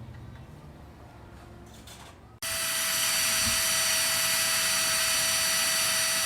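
A small electric air pump switches on about two and a half seconds in and runs with a steady, high whine and rushing air, likely inflating an air mattress.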